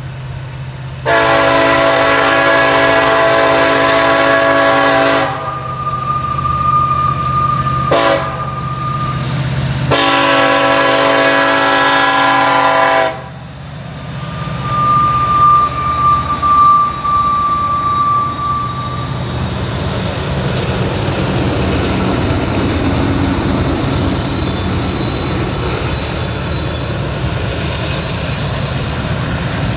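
Freight diesel locomotive's multi-chime air horn sounding two long blasts with a brief toot between them for a grade crossing, over the low drone of diesels climbing a steep grade. After the horn a thin high tone sounds twice, then the lead locomotives pass close, their engines working hard under heavy load amid rising rumble and wheel noise.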